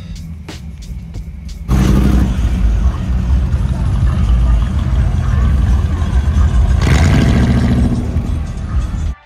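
Music with a steady beat, then about two seconds in a sudden loud stretch as a Chevrolet Impala lowrider rolls slowly past: engine rumble mixed with loud music. It cuts off abruptly near the end.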